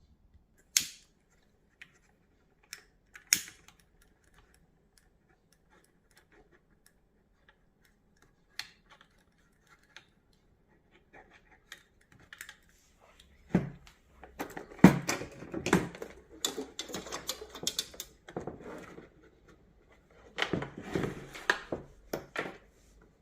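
A few sharp isolated clicks, then two bursts of rapid clicking and rattling of small hard parts being handled, the first about halfway through and the second near the end.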